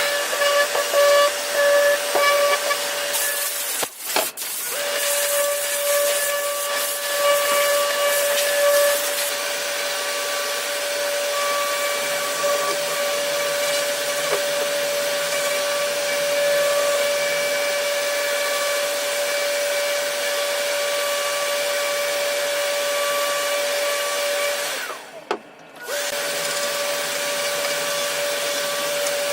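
A motor-driven tool running steadily, a constant whine over rushing air, with a harsher hiss for a few seconds early on. It cuts out briefly about four seconds in and again near the end, starting up again each time.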